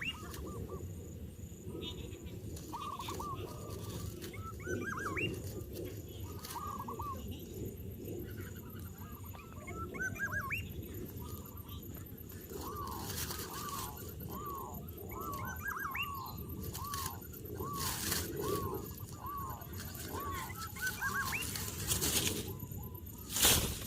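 Bird calls: short arched calls, at first in scattered clusters, then repeated steadily about once a second for several seconds. A sudden loud noise comes near the end.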